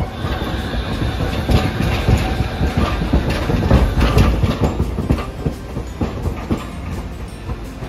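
Hiroden 800-series streetcar no. 810 rolling slowly past close by: a low rumble with its wheels clattering over the track, loudest about midway and fading near the end.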